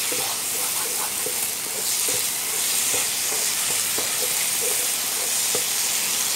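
Mutton chukka with small onions sizzling in a pan as a wooden spatula stirs and scrapes it: a steady frying hiss with many short, repeated scraping strokes. The dish is in its final dry-frying stage, nearly done.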